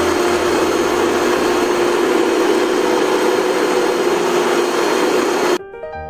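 Miyako electric hand mixer on its stand beating a thick rice-flour batter: a steady motor hum with a constant whine. It cuts off suddenly near the end, and soft piano music follows.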